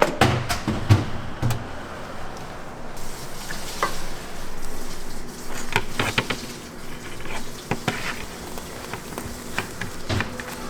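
Food sizzling on a hot cooking surface, with frequent sharp clicks and knocks of utensils.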